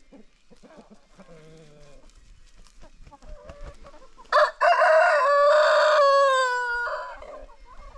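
A rooster crows once. It is a loud call of about two and a half seconds that drops in pitch near the end, after soft clucking from hens.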